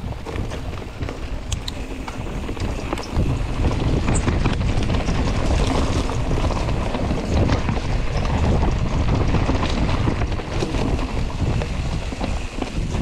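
Wind buffeting the microphone over the rumble of a mountain bike rolling fast down a rocky trail, with scattered clicks and knocks from the bike and tyres on the rocks. The rumble grows louder about three seconds in as speed builds.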